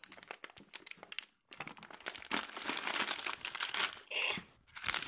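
Crinkling and rustling of plastic as a hand rummages inside a plastic toy toilet bowl: scattered small clicks and taps at first, then a denser crackling rustle from about a second and a half in.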